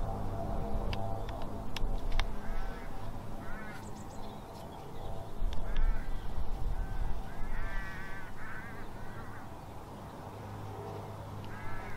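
Outdoor ambience with a bird calling again and again in short calls, over a steady low hum. A few sharp clicks sound in the first two seconds.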